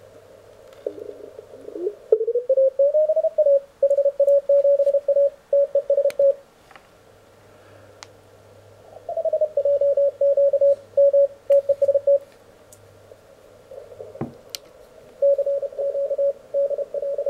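Morse code (CW) signals received on an Elecraft K1 transceiver: a single tone keyed on and off in dots and dashes, in three runs with short pauses between. The tone's pitch glides up about two seconds in and slides down about nine seconds in as the RIT (receiver incremental tuning) is turned. A faint low hum sits underneath.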